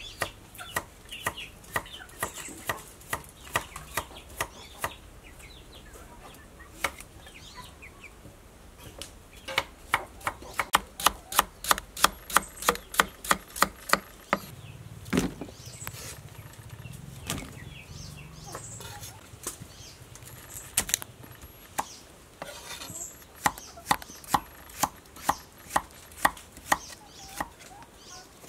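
Kitchen knife slicing a carrot and then a broccoli stalk on a thick wooden chopping board. The blade strikes the board in runs of sharp taps, about three or four a second, with pauses between the runs.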